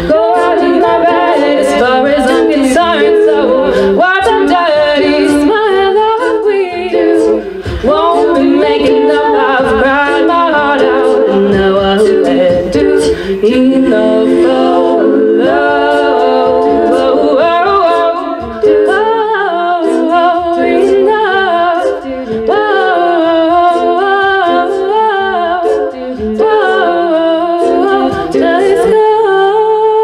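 All-female a cappella group singing, a lead voice over close backing harmonies, with sharp percussive clicks running through it. Near the end they settle onto a single held chord.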